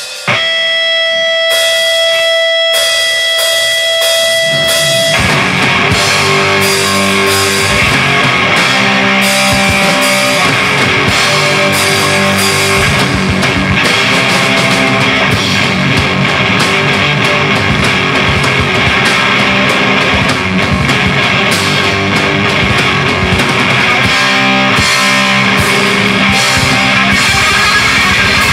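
A rock band playing live: a held, ringing high tone over a few drum hits opens, then about five seconds in the full band comes in with loud guitar, bass and drums and keeps going steadily.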